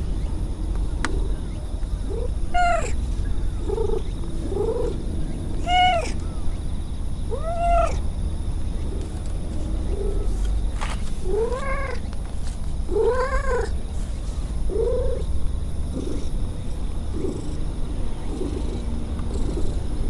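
Stray cat meowing again and again in short calls that rise and fall in pitch, about a dozen over the stretch, with a steady low purr beneath as it is stroked.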